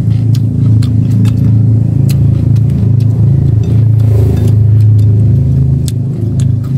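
A boat engine passing close by on the river, a loud steady low drone that swells around the middle and eases near the end. Light clicks of chopsticks against rice bowls over it.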